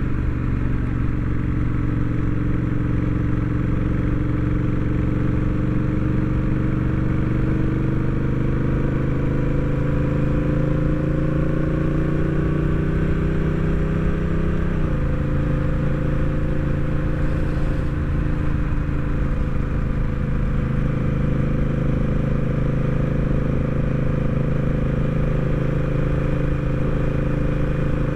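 Honda Rebel 1100 DCT's parallel-twin engine pulling on the road with its pitch slowly rising. About halfway through, the pitch drops suddenly as the dual-clutch gearbox shifts up by itself, then the engine runs at a steady pitch. Low wind rumble sits underneath.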